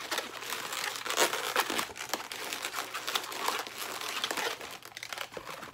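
Inflated latex modelling balloons being handled: hands rubbing and pressing the twisted balloons and wheel balloons together, a dense run of short rubbing crackles.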